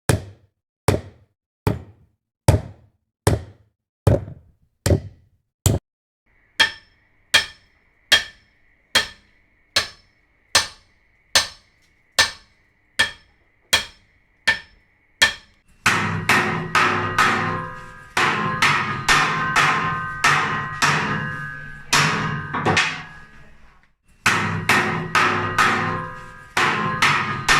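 Hammer blows struck one after another at an even pace, about one a second. Partway through the blows start to ring, and near the middle they come faster with a lingering ring after each, pausing briefly before carrying on.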